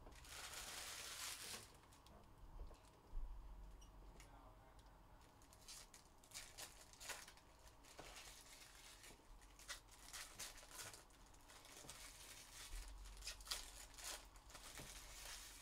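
Faint tearing of a trading-card pack wrapper in the first second and a half, then crinkling and a run of short clicks and rustles as the cards are handled.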